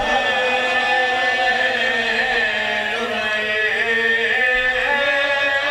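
A man chanting in long, drawn-out notes into a microphone, his pitch held nearly steady and stepping slightly every second or two. This is the sung style of a zakir reciting at a Shia majlis.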